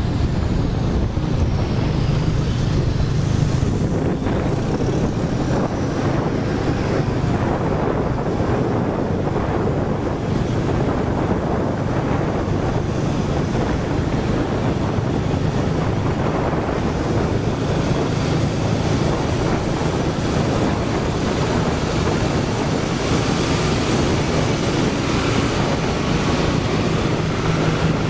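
John Deere 5715 tractor's four-cylinder diesel engine running steadily at road speed, mixed with traffic noise and wind on the microphone of a vehicle moving alongside.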